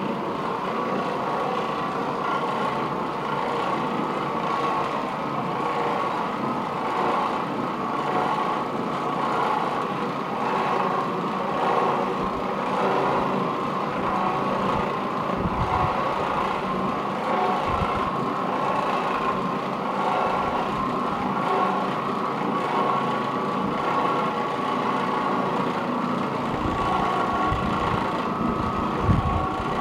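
Oreck Orbiter orbital floor machine running steadily, its motor giving a constant hum as the bonnet pad scrubs over carpet, with a few brief low thumps.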